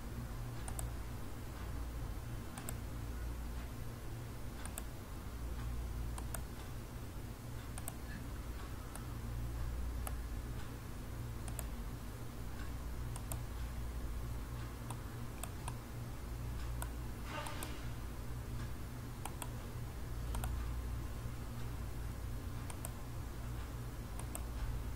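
Computer mouse clicking at irregular intervals of a second or two as edges are picked one after another, over a steady low hum. A brief hiss comes about seventeen seconds in.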